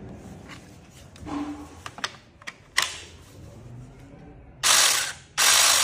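A few plastic clicks and knocks as the saw is handled, then the ONEVAN 8-inch brushless cordless pruning saw run twice in short bursts near the end, its motor and chain whirring for about half a second each time.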